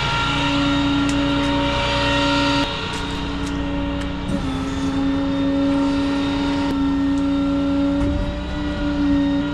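Rollback tow truck running, with a steady whining hum that shifts slightly in pitch a few times over a low engine rumble.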